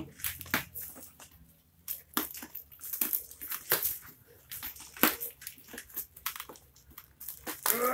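Cardboard shipping box being pulled open by hand, its flaps and packing tape giving irregular crackles, scrapes and rustles.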